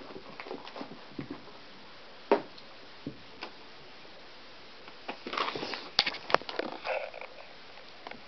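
Great Dane puppy playing with a ball: scattered knocks and scuffles of paws and the ball on the floor. One sharp knock comes about two seconds in, and a busier run of knocks and rustling comes around five to seven seconds.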